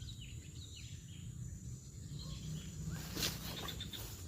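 Outdoor rural ambience: birds chirping over a low steady rumble, with one short noisy burst about three seconds in.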